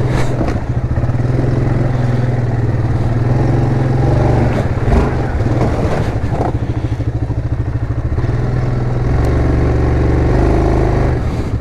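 2017 Yamaha Grizzly 700's single-cylinder engine running steadily under load in four-wheel-drive low with the diff lock engaged, with a brief knock about five seconds in.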